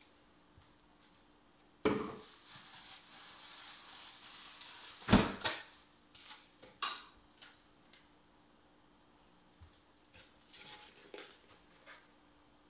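Kitchen clatter from handling cups and a plastic blender jar on the counter, with a loud knock about five seconds in and a few lighter clicks after it. The blender motor is not running.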